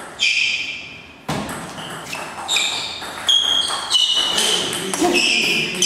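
Table tennis rally: sharp clicks of the ball off bats and table, one louder knock about a second in, mixed with short high squeaks of shoes on the sports floor.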